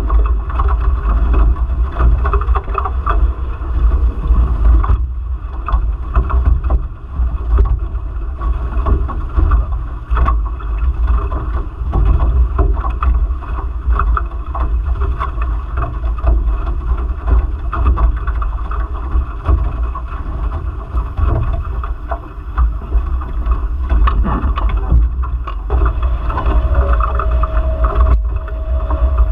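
Nacra Infusion F18 catamaran sailing fast: water rushing and splashing along the hulls under heavy wind buffeting on the microphone. A steady hum comes in near the end.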